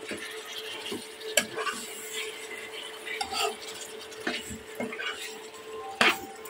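Metal spoon stirring chicken and potato curry in a pan, scraping and knocking against the pan with scattered clinks. A sharper clank comes near the end.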